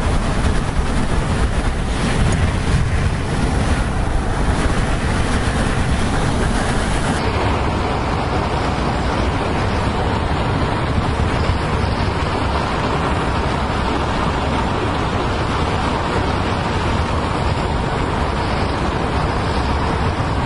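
Wind rushing past a moving car's open window and buffeting the microphone, over steady road noise. The rush changes character about seven seconds in.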